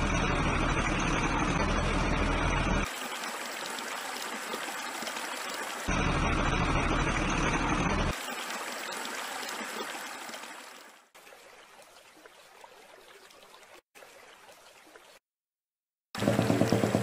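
Toy dump truck's motor whirring as its wheels churn through muddy water, in two spells of a few seconds each, with water sloshing between them. The sound fades to faint a few seconds before the end, then a toy tractor's motor starts with a pulsing drone just before the end.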